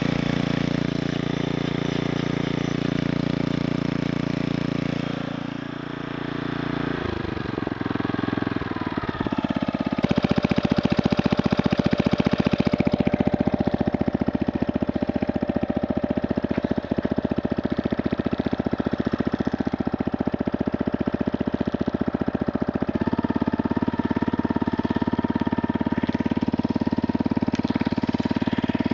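A 5 hp Briggs & Stratton single-cylinder lawnmower engine running on a homemade motorized bicycle. Its note dips and shifts pitch about six to nine seconds in, then it runs louder and steadier from about ten seconds in.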